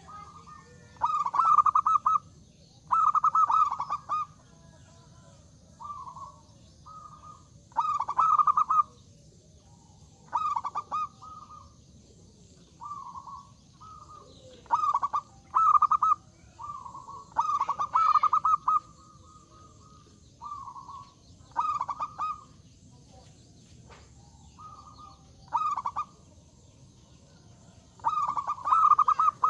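Zebra dove (perkutut) in full song: short phrases of quick cooing notes, about half a second to a second each, repeated every one to two seconds, some loud and some softer.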